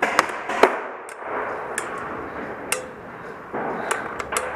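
Paintball markers firing during a game: an irregular series of sharp pops, the loudest about two-thirds of a second in.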